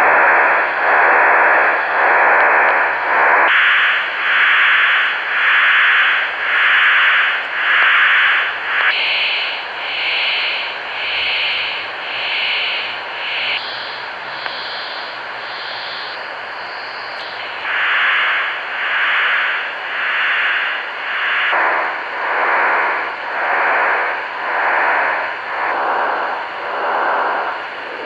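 Shortwave receiver in lower sideband near 6.455 MHz playing a hissing data-like signal with a strange warping sound, swelling and fading about once every three-quarters of a second. Its pitch jumps in steps as the tuning moves, and the pulsing weakens for a few seconds in the middle. The uploader likens it to a STANAG 4285 signal drifting on and off frequency, but says it could be radar.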